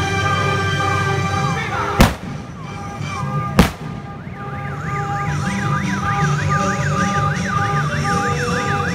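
Music over a loudspeaker mixed with a vehicle siren sweeping rapidly up and down, about three sweeps a second, in the second half. Two sharp cracks come about two and three and a half seconds in.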